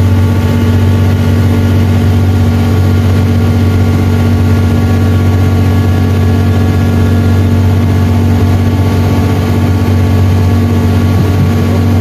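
Amphibious duck tour vehicle's engine running steadily on the water: a loud, unchanging drone with a strong low hum and several higher steady tones above it.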